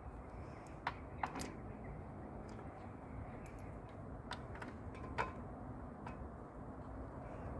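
A handful of short, light clicks and taps, scattered and irregular, over a steady low background noise.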